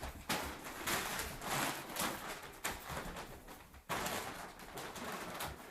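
Bag rustling and crinkling in irregular bursts as the dog moves about with her head stuck inside it.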